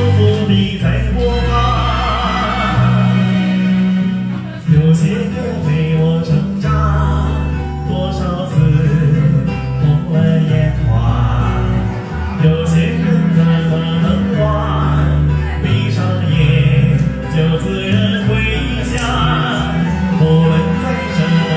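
A singer performing a song in bel canto style over a karaoke backing track with a steady bass line. The voice is dry, with the karaoke microphone's echo effect switched off.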